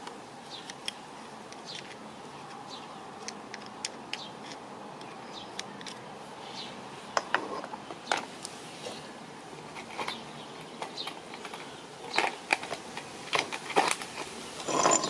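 Light metallic clicks and taps from handling the metal housing and small parts of a starter motor during reassembly. They come sparsely at first, then more often and louder in the last few seconds, over faint steady background noise.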